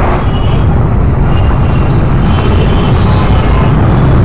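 Street traffic noise: a steady low rumble of vehicles on the road.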